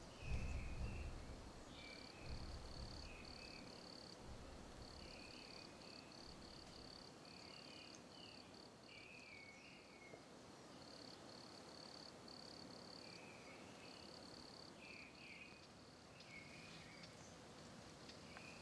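Faint insect chirping, like crickets, in repeated runs of quick high pulses, with scattered short warbling chirps beneath. A low rumble dies away over the first two seconds.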